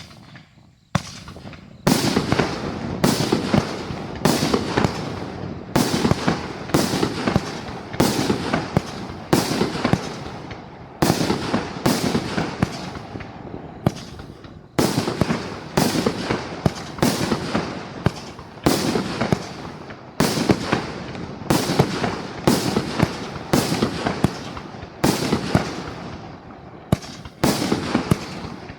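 A 500-gram consumer firework cake firing its shots one after another, about one every three-quarters of a second. Each shot is a sharp bang that fades away, and there is a brief pause about halfway through.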